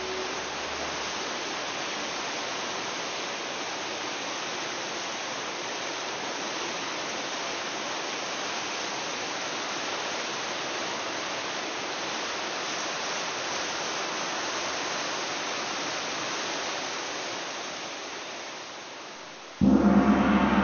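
Steady hiss of rain on an open-air recording, fading out near the end. Just before the end a loud struck, gong-like chord sets in as music begins.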